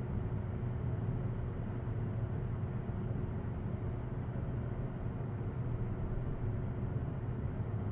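Steady low hum and hiss of background room noise, with a faint constant tone above it; nothing starts or stops.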